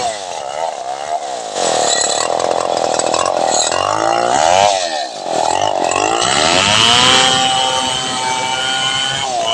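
Large two-stroke chainsaw ripping lengthwise along a log. The engine speed dips and recovers twice in the first half as it takes the load, then holds steady at high revs through the cut.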